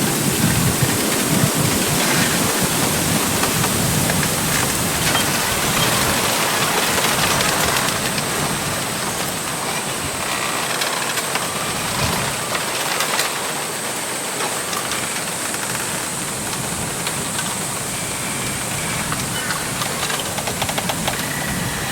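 Wind blowing through a bamboo grove: a steady rushing of leaves with scattered small clicks of stems rubbing, gustier in the first several seconds.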